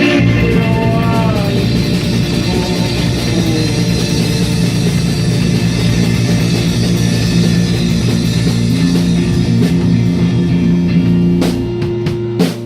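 Live rock band playing loudly: distorted electric guitar chords over bass and a drum kit, with no vocals. A couple of sharp drum hits land near the end.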